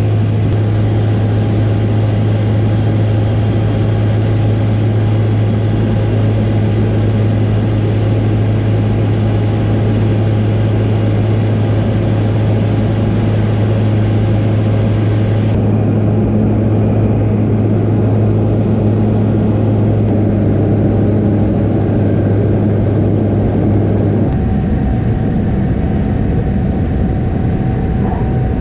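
Small high-wing propeller plane heard from inside the cabin: a loud, steady engine-and-propeller drone with a strong low hum. The sound changes abruptly twice, and near the end the low hum drops away as the plane is on the runway.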